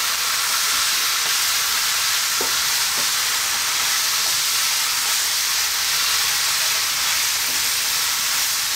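Glass noodles, shredded cabbage, carrot and pork sizzling in a hot wok as they are stirred and tossed with a spatula: a steady frying hiss, with a couple of faint clicks of the spatula against the pan.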